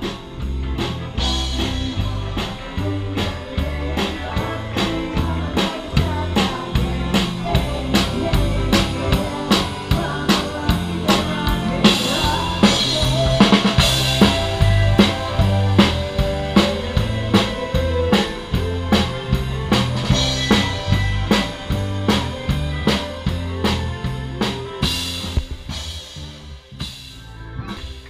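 Live band playing: a drum kit keeps a steady beat under bass and electric guitar, with cymbals washing louder about halfway through.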